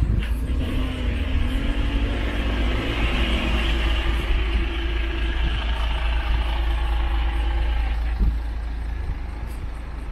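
Articulated city bus driving past close by, its engine running with a heavy low rumble and a hiss of tyres that eases off about eight seconds in.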